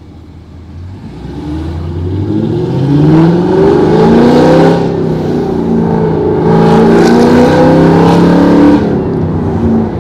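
Supercharged 6.2-litre V8 of a Chevrolet Camaro ZL1 with a 750 hp package, accelerating hard. The revs climb steadily, drop at an upshift about halfway through, climb again, then fall away as it eases off near the end.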